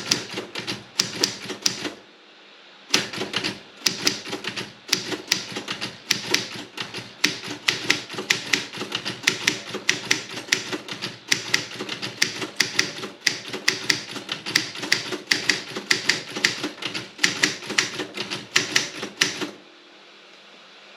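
Robotron 24 typewriter with a wide A3 carriage being typed on: a rapid, uneven run of key strikes. The typing pauses for about a second near the start, then runs on and stops shortly before the end.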